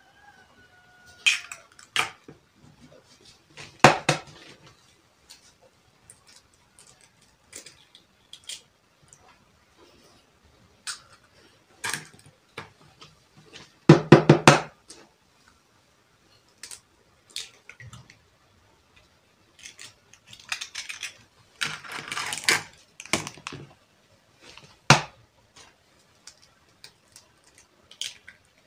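Hen's eggs being cracked open one by one into a bowl: scattered sharp taps and knocks of shell, with crackling as shells are broken and pulled apart, and the loudest knock about halfway through.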